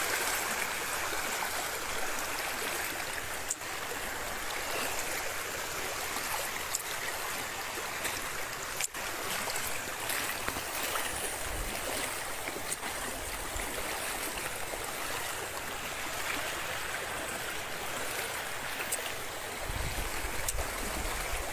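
Fast-flowing hill-torrent floodwater rushing steadily, with a low rumble coming in near the end.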